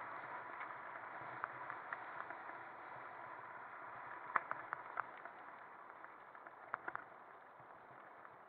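Mountain bike rolling over a gravel track, giving a steady crunching hiss of tyres on loose stones. Scattered sharp clicks and rattles come from stones and the bike itself; the loudest is about halfway through, with a few more near the end.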